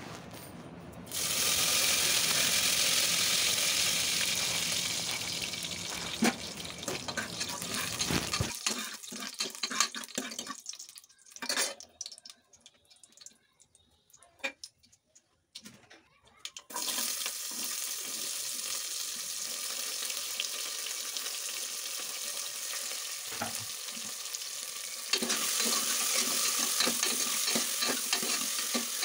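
Hot oil sizzling with mustard seeds and curry leaves in an aluminium pressure cooker (a South Indian tempering, oggarane). A loud crackling sizzle starts about a second in and drops to scattered crackles and ladle scrapes in the middle. The sizzle picks up again and grows louder near the end as chopped onions are stirred in with a steel ladle.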